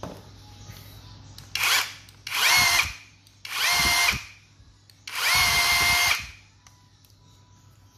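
Ingco 20V cordless rotary hammer run unloaded in short trigger pulls, four times, the last about a second long. Each time the motor spins up with a rising whine, holds a steady high pitch and winds down.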